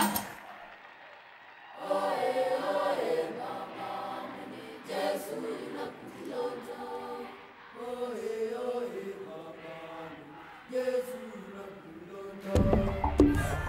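A choir singing a slow chant in long held notes that step up and down. Near the end a louder, deeper sound cuts in.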